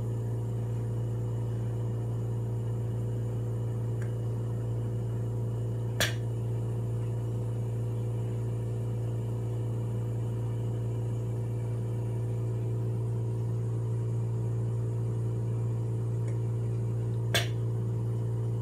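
Puritan Bennett 840 ventilator running its short self-test with the patient Y blocked: a steady low hum with fainter higher tones, and two sharp clicks, about six seconds in and near the end.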